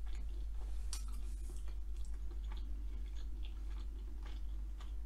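A person chewing a mouthful of breaded chicken with the mouth closed, close to the microphone: faint, irregular soft wet clicks. A steady low electrical hum lies underneath.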